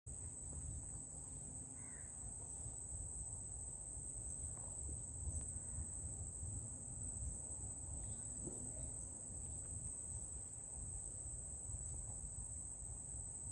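Insects droning in one steady high-pitched tone, with a low rumble on the microphone and a few faint short calls.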